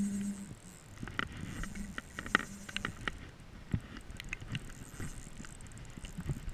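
Spinning reel being cranked to retrieve a lure, with scattered ticks and knocks of the reel and hands against a body-worn camera, over light rain pattering. A brief low hum sounds at the very start.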